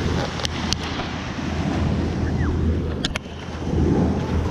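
Small waves washing up on a sandy beach, with wind noise on the microphone and a few brief clicks.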